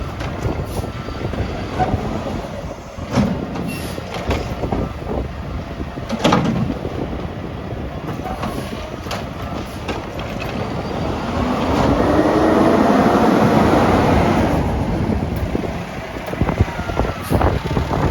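Mack LR garbage truck with a McNeilus Meridian body and Curotto Can arm working a stop, with sharp clanks and bangs as a cart is handled. About eleven seconds in, the engine revs up for a few seconds, rising in pitch, to drive the hydraulics. Wind rumbles on the microphone throughout.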